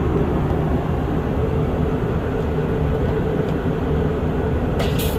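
Steady low rumble of a passenger airliner heard from inside the cabin.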